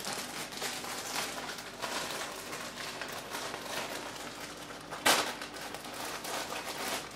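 Clear plastic packaging crinkling and rustling as a plush toy is unwrapped from its bag, with a louder crackle about five seconds in.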